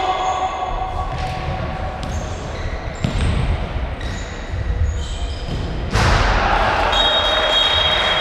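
Six-a-side football in a hall: ball kicks and bounces knocking about once a second, with short shoe squeaks on the floor. About six seconds in a louder, hissy noise rises suddenly, and a steady high tone comes in near the end.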